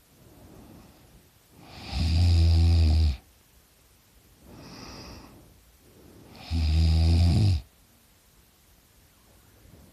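A sleeping teenage boy snoring loudly through an open mouth: two loud, rattling snores about a second long each, some four and a half seconds apart, with a softer breath between them.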